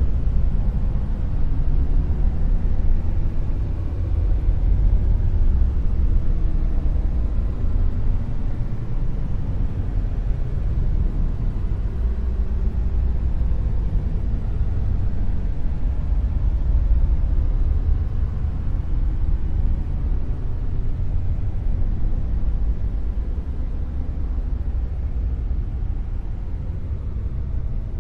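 Dark noise: a steady, deep rumbling hiss made up mostly of bass, with little in the high end, swelling gently and easing a little toward the end.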